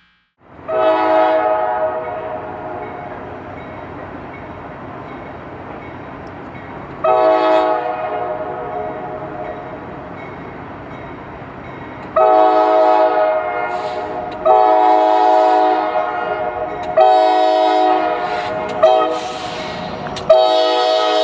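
Diesel locomotive air horn blowing a horrible-sounding chord over the rumble of the train. It gives two long blasts that fade as they go, then five shorter blasts about every two seconds.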